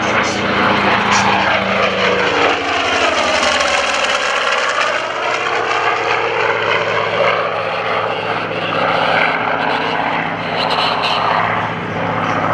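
Douglas A-1E Skyraider's Wright R-3350 radial engine and propeller running at power during a flyby pass, a steady heavy drone with a sweeping, phasing whoosh as the aircraft goes by.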